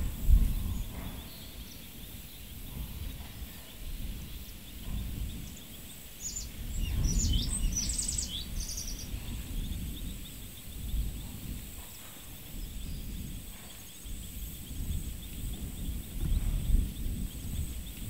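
Open-country ambience: a short run of bird chirps about seven seconds in, over a steady high insect buzz and a low rumble that swells and fades in gusts.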